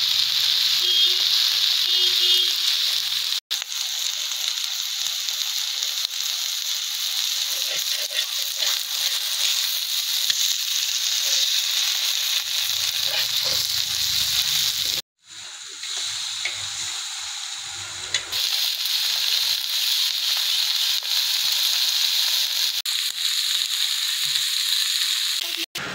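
Fish sizzling as it fries in hot oil: a steady, loud hiss. It cuts out briefly about a third of the way in and again just after halfway, and is a little quieter for a few seconds after that second cut.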